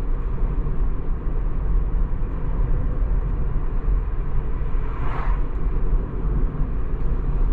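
Steady tyre and road noise of an electric Tesla Model 3 driving at about 60 km/h, heard inside the cabin, with no engine note. About five seconds in there is a brief whoosh as an oncoming car passes.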